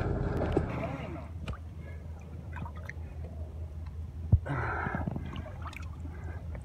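A large white sturgeon crashing back into the river with a splash after a jump. Then water gurgling at the side of a boat, with a single sharp knock about four seconds in.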